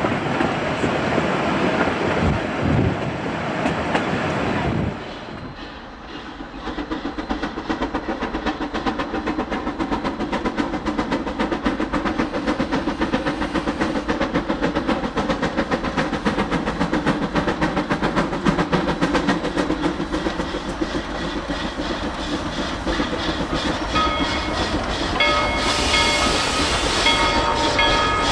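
Denver & Rio Grande No. 425, an 1895 Baldwin narrow-gauge consolidation (2-8-0) steam locomotive, working a train with a fast, even beat. A loud rushing noise before this cuts off about five seconds in. Near the end the locomotive's whistle sounds in short, broken blasts.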